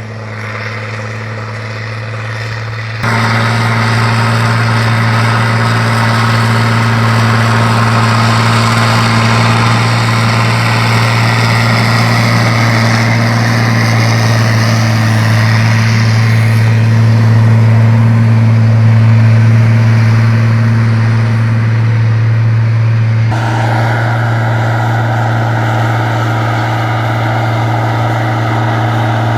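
Turbocharged diesel engine of a Valtra BH 180 tractor running hard at steady high revs with a loud, even drone. It gets abruptly louder about three seconds in while its pitch stays the same.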